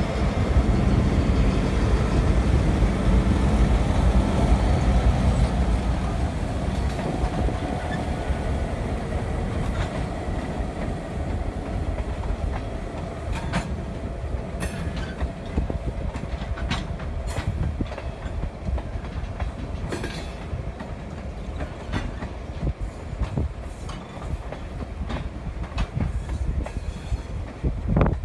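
EMD GP9 and GP38 diesel-electric locomotives running under load; their engine rumble fades as they pull away. Tank cars then roll past close by, their wheels clicking irregularly over the rail joints.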